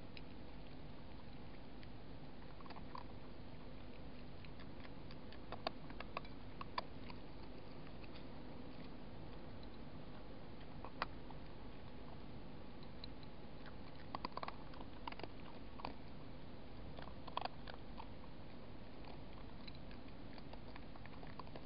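A fox eating from a dish: scattered crunches and clicks of chewing, coming in small clusters, over a steady background hiss with a faint hum.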